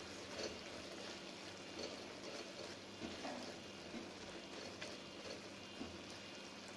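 Wooden spatula stirring a wet mix of grated carrots and milk in a non-stick pan: faint, irregular soft scrapes and taps, stopping shortly before the end as the spatula is laid down.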